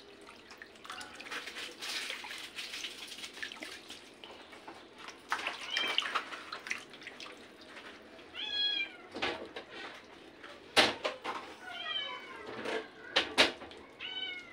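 Raw chicken pieces being lifted out of a plastic bowl of vinegar water into a plastic strainer, with water splashing and dripping. A short high-pitched animal call comes a few times in the second half, and three sharp knocks in the last few seconds are the loudest sounds.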